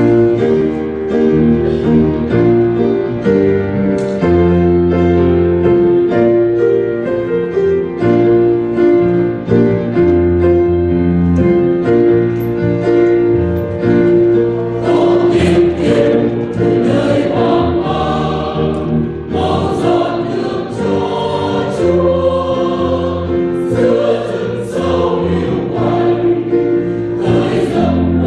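Church choir singing a hymn in Vietnamese to keyboard accompaniment, the singing growing fuller about halfway through.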